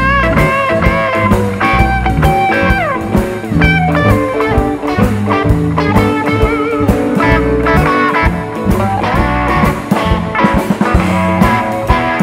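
Live blues band playing an instrumental break: a lead electric guitar line with string bends and vibrato, including one quick downward slide a few seconds in, over a steady electric bass and drum-kit groove.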